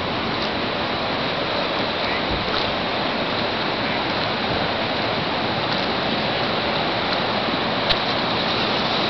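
Floodwater rushing in a steady, even roar of noise, with one brief click about eight seconds in.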